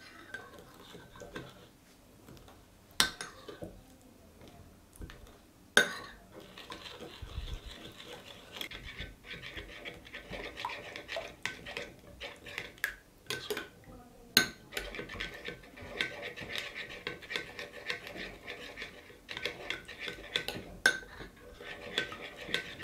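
Metal spoon stirring a thick spice-and-oil marinade in a white ceramic bowl. Sharp clinks against the bowl come a few seconds apart at first, and after about six seconds they give way to steady scraping and stirring with occasional louder clinks.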